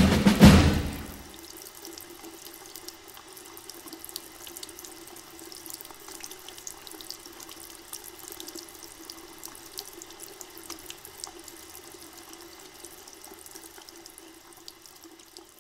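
Drum-led music cuts off about a second in and gives way to steady running water with scattered drips and splashes, fading out near the end.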